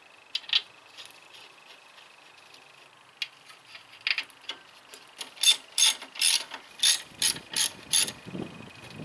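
A hand ratchet wrench is worked on a brake-job bolt. Scattered clicks come first, then a run of about nine quick ratcheting strokes, roughly three a second, from about five seconds in.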